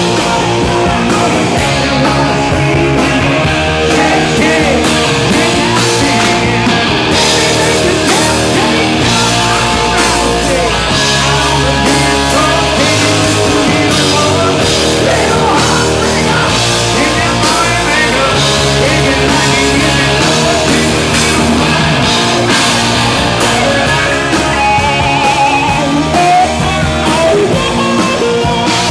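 Live rock band playing loud and steady, with electric guitar over changing bass notes and drums.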